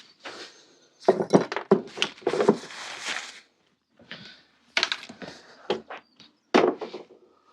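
Sharp metallic clicks, clinks and knocks of hand tools and bicycle cantilever brake parts being handled and taken off a steel bike frame, in two busy bursts with short pauses between.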